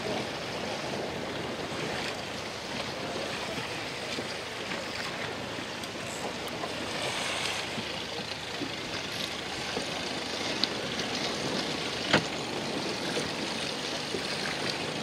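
Steady wash of choppy sea water against a small boat, with wind on the microphone; one sharp knock about twelve seconds in.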